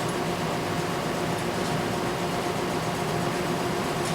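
Steady mechanical hum at a constant pitch, with a faint click near the end.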